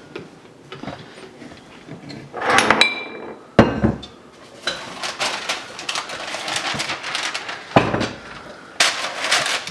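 A stainless steel mixing bowl clanks and rings as it is set down, with the spatula clinking against it, followed by two sharp knocks. Parchment paper then crinkles and rustles as it is pulled off the roll.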